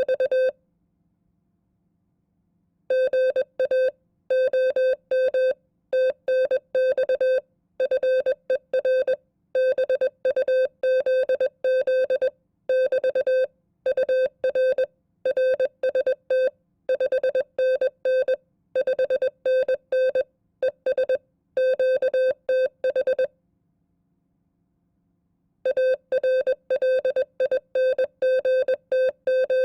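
Morse code sent at 20 words per minute as a keyed single-pitch audio tone, dots and dashes of a sample amateur radio contact for code-copying practice. The keying breaks off about half a second in, resumes about three seconds in, and pauses for a couple of seconds near the end.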